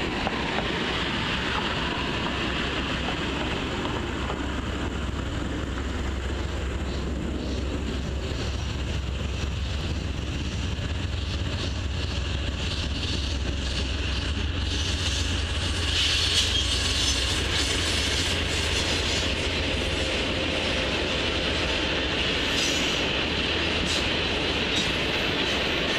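Passenger train rolling past on the far tracks over a steady low rumble, its wheels clicking rapidly over the rail joints. The clicking grows thicker and louder from about halfway through.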